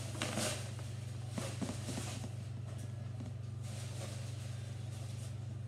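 A few soft rustles and light clicks of hands handling food and its wrapping at a table, over a steady low hum.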